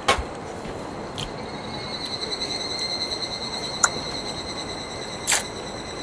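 A cicada singing: a steady high buzzing tone that grows stronger about two seconds in and holds, which the campers guess may be a higurashi. A few short sharp knocks, the first as a can is set down on the table.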